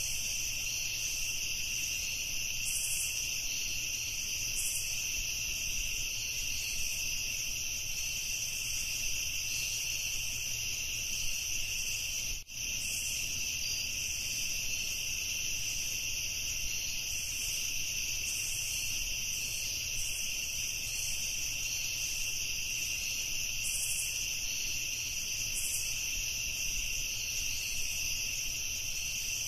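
Steady night chorus of crickets, a continuous high-pitched trill, briefly cutting out about twelve seconds in.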